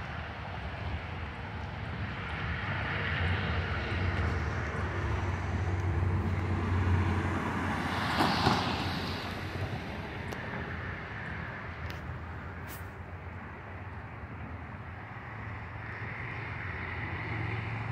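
Steady low outdoor rumble, with a car passing close by about halfway through, its tyre and engine noise swelling and fading within a second or two.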